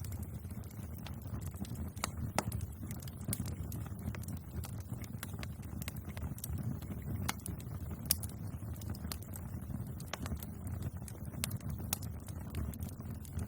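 Bonfire burning with a low steady rumble of flames and frequent sharp crackles and pops from the wood, a few of them louder.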